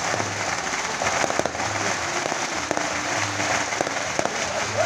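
Aerial fireworks going off in a dense, continuous crackle of many sharp pops.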